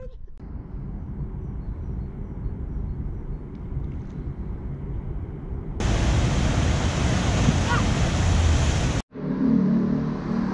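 Whitewater rushing through a river's standing surfing wave: a loud, steady rush of water that starts about six seconds in and cuts off abruptly three seconds later. Before it a low rumble, and after it a low steady hum.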